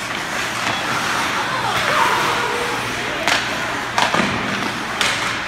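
Ice hockey play in an arena: a steady wash of skating and arena noise under spectators' voices, with three sharp knocks from sticks and the puck in the second half.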